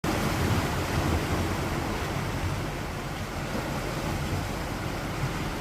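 Sea surf washing in steadily, with wind rumbling on the microphone.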